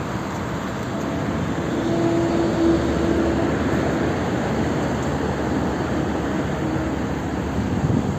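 Motorcycle on the move: a steady rush of wind and road noise with engine drone, and a faint steady whine that comes in for a second or so partway through.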